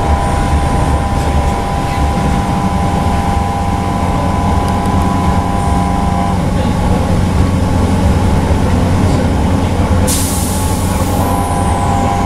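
Interior of a Northern class 323 electric multiple unit running at speed: steady wheel and track rumble with a two-note electric traction whine that drops out about halfway through and comes back near the end. About ten seconds in a sudden louder rush lasts a second or so.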